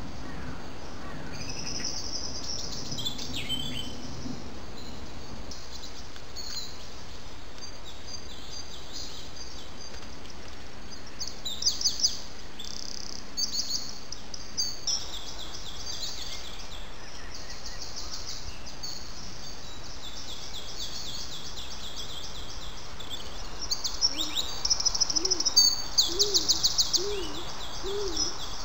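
Wild songbirds singing: high, rapid trilling phrases on and off, loudest about halfway through and again near the end. Near the end a run of short low hoots joins in, about two a second.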